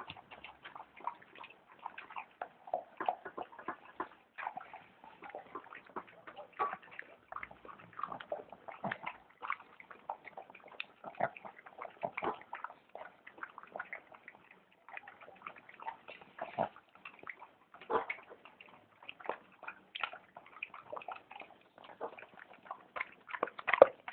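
A small dog eating wet food from a bowl: quick, irregular chewing, lapping and smacking sounds, several a second.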